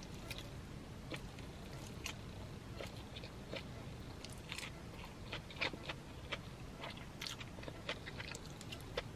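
Close-up chewing of a mouthful of chow mein noodles: soft, irregular mouth clicks and smacks, a few every second, over a low steady hum.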